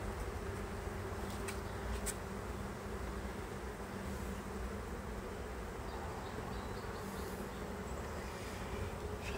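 Honeybees of a nuc colony buzzing in a steady, continuous hum during a hive inspection, with two light clicks about a second and a half and two seconds in.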